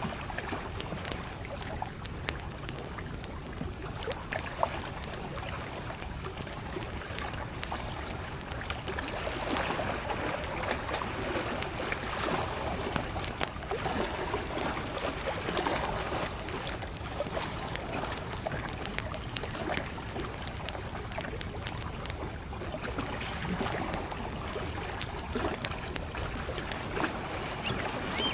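Small lake waves lapping and trickling at the shore in gentle swells, with a campfire crackling in many sharp, scattered pops over them.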